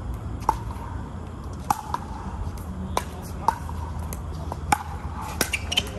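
A pickleball rally: sharp hollow pops of paddles striking the plastic ball and the ball bouncing on the court, about eight in all at irregular intervals of half a second to a second, over a steady low rumble.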